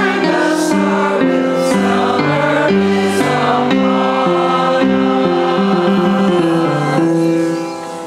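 Choir singing slow held chords that change about every second, fading out near the end.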